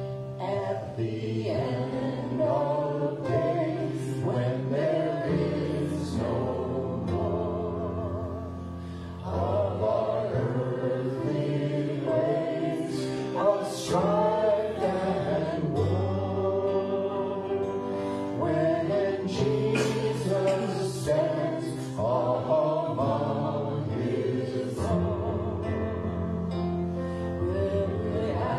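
Live worship song: a man and a woman singing together over strummed acoustic guitar and keyboard.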